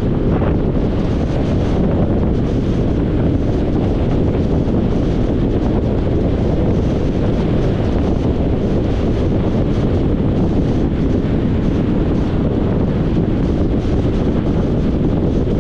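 Steady wind rushing over the microphone of a camera mounted on the hood of a moving vehicle, with the vehicle's road noise beneath it.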